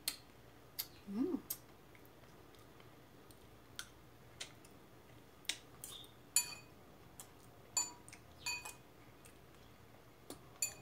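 Metal cutlery clinking and scraping against a ceramic bowl while salad is eaten: a dozen or so scattered clicks, the later ones ringing briefly. About a second in, a short hummed sound from the eater rises and falls in pitch.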